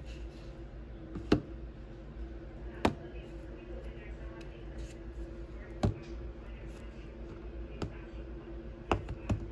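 Wire whisk stirring thick cream cheese icing in a plastic tub, knocking against the tub's side with about six sharp, irregular clicks over a steady low hum.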